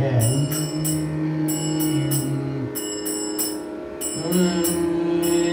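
A man's voice singing a Tamil devotional song holds one long note for about two and a half seconds, then starts a new phrase near the end. Under the voice run a steady drone and a regular jingling rhythm keeping time.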